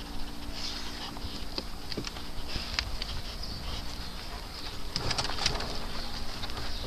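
Dogs milling around: scattered ticks and scuffs of paws and claws on a plastic platform and artificial turf, with a quick flurry of clicks about five seconds in, over a steady low hum.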